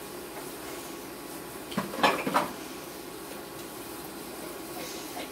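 Dishes and utensils clattering against each other in a kitchen sink during hand washing, a short burst of clinks about two seconds in, over a steady low background hum.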